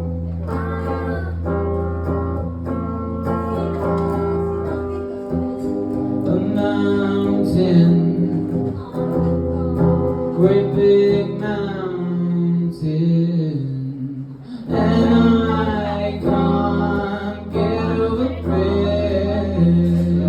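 A live song performed by a solo singer over held accompaniment chords. The accompaniment briefly drops out around two-thirds of the way through, then returns.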